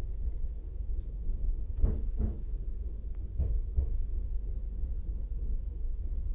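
Regional train running on the rails: a steady low rumble with pairs of knocks as the wheels roll over rail joints.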